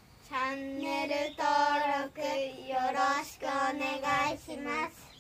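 A child's voice singing a short tune in several phrases of held notes.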